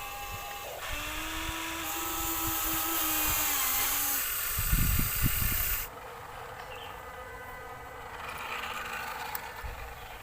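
Small electric motors of a toy construction vehicle whining, their pitch shifting as they start, stop and load up, with a few loud clattering knocks about five seconds in. At about six seconds the whine cuts off and a fainter steady hum remains.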